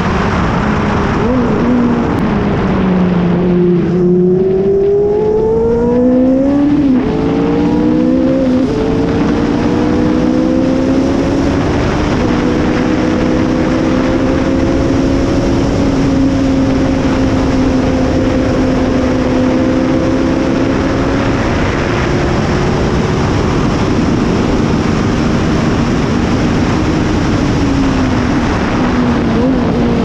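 Lotus 79 Formula 1 car's Cosworth DFV V8 heard onboard at speed. The note dips at about four seconds, then climbs in steps broken by two quick upshifts. It holds a nearly steady high note for a long stretch, then wavers near the end.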